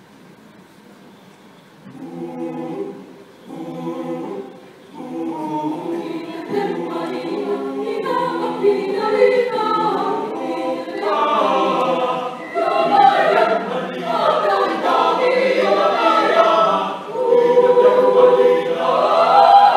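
Mixed choir singing a cappella, starting about two seconds in with two short phrases, then singing on and growing fuller and louder.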